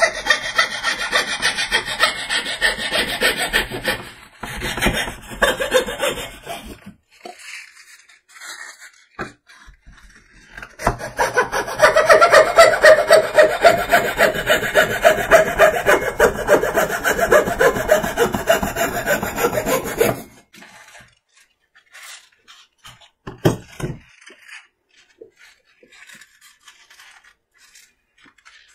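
Hacksaw with a fine-tooth (24 TPI) Truper bi-metal blade sawing with quick back-and-forth strokes, in several spells; the longest and loudest run comes about halfway and stops abruptly. A few light knocks follow.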